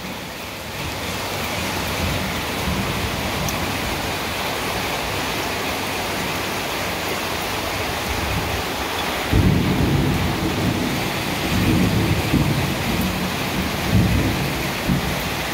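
Rain falling steadily during a thunderstorm. About nine seconds in, a long low rumble of thunder sets in and swells several times.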